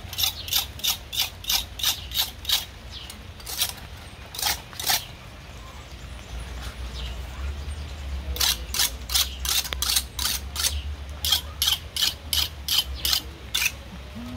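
Knife blade scraping along a large fish's skin in quick repeated strokes, about three a second, in runs with short pauses between them.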